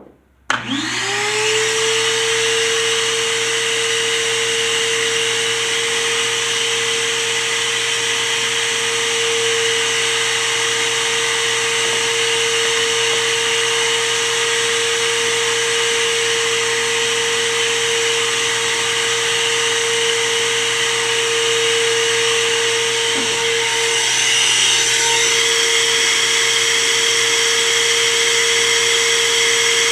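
Vacuum cleaner motor switching on, spinning up within a second and running steadily, clearing concrete dust from drilled anchor holes; its sound shifts slightly about 24 seconds in.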